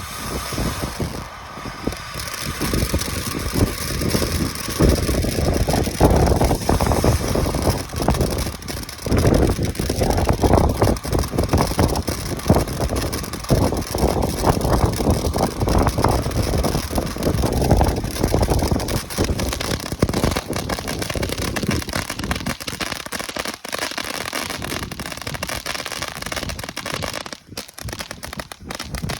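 Strong wind buffeting the microphone, a rushing roar that swells and dips every few seconds, with dense crackling throughout that dies down near the end.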